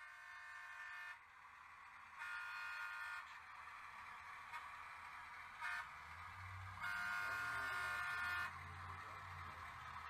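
The DCC sound decoder in an HO-scale Galloping Goose model plays a recorded Pierce-Arrow horn: two toots of about a second each, a short blip, then a longer blast. A low engine rumble comes up underneath in the second half.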